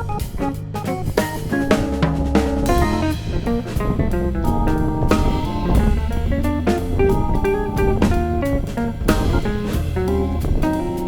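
Upbeat instrumental background music with a drum kit keeping a steady beat under guitar and bass.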